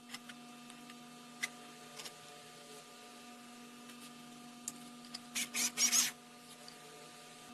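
Homemade 12 V mini electric screwdriver, built from a small 300 rpm gearbox motor, whirring in several short bursts about five and a half seconds in as it drives a screw into wood. A few light clicks come earlier.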